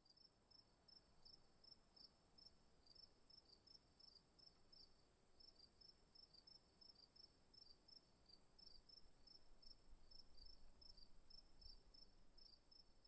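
Near silence: faint, high-pitched insect chirping, several short chirps a second, over a thin steady high whine.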